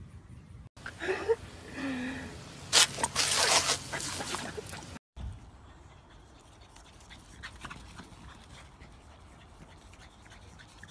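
A dog whining in short rising and falling whines, then a louder stretch of rough, noisy sound. After a cut, a quieter stretch follows with faint clicks.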